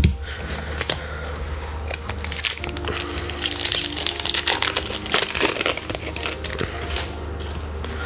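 Foil wrapper of a Magic: The Gathering booster pack being torn open and crinkled by hand, a dense crackling that is busiest in the middle, then the stack of cards being slid out.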